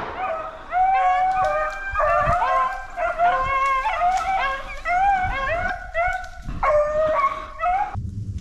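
A pack of beagles baying together on a rabbit's trail, several voices overlapping in long, bending bawls. The chorus breaks off abruptly near the end.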